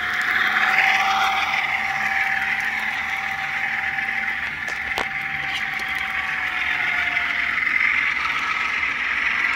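HO-scale ScaleTrains ES44 GEVO model locomotive running on its track, its onboard sound decoder playing the GE diesel engine sound through a small speaker: a steady tone over a hissing rumble. There is a single sharp click about five seconds in.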